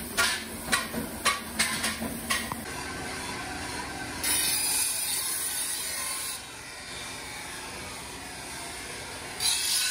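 Large abrasive grinding wheel grinding the edge of a steel chaff-cutter blade made from leaf spring: a loud hissing grind starts about four seconds in, eases after a couple of seconds and swells again near the end. Before it, a quick run of about six sharp metallic knocks.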